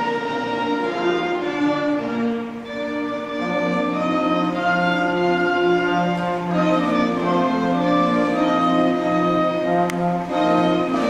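School concert band playing, with flutes, clarinets and trumpets, moving through held chords and sustained notes.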